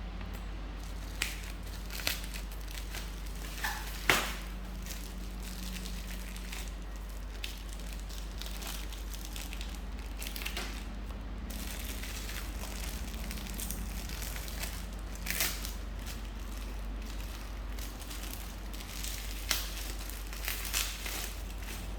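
Handling noise: crinkling and rustling of packaging with a few sharp clicks and taps scattered through, the loudest about four seconds in, over a steady low hum.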